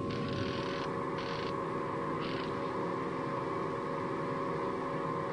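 A steady drone of several held tones from the film's sci-fi soundtrack, with three short hissing bursts in the first two and a half seconds.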